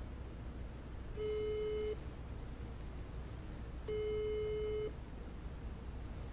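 Ringback tone of an outgoing phone video call still waiting to be answered. A steady single-pitched beep about a second long sounds twice, roughly three seconds apart.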